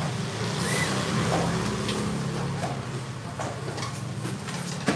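A motor vehicle's engine running close by with a low, steady drone, with a few light knocks scattered through it.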